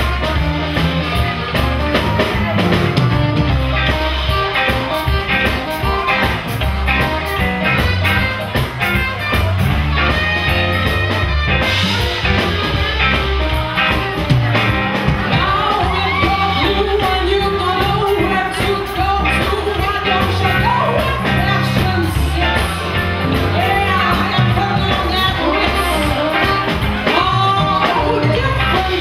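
A small live band playing, with a woman singing lead over double bass, guitar and drums.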